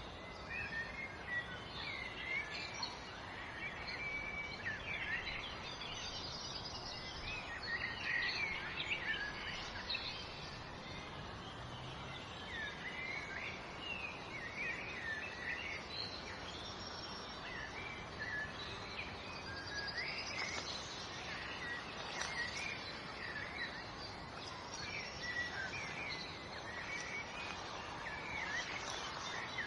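Many small birds chirping and twittering in quick short calls over a steady background hiss.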